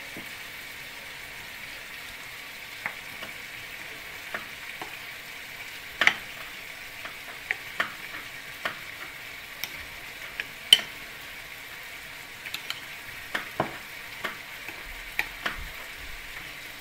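Raw beef strips being mixed by hand and with a metal utensil in a ceramic bowl of marinade: wet squishing with scattered sharp clinks of the utensil against the bowl, over a steady hiss.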